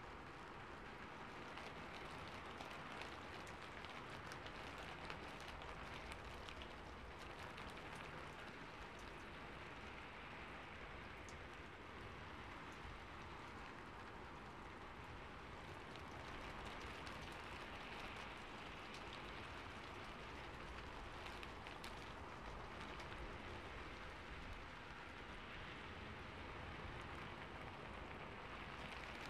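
Steady rain falling, an even patter with scattered faint drop ticks.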